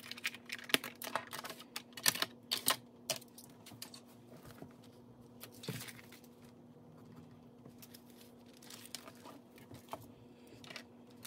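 Light clicks and taps from handling small objects on a tabletop, dense for the first few seconds and then sparse, over a faint steady hum.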